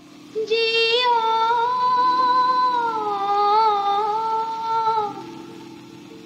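A woman's voice holding one long wordless sung note, wavering and sliding slightly in pitch, over a low steady drone. The note fades out about five seconds in.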